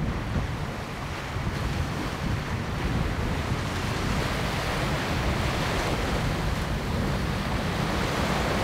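Steady sea waves washing on the shore, with wind blowing across the microphone.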